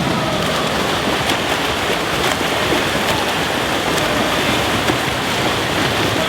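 Steady splashing and churning of pool water as swimmers train through a set.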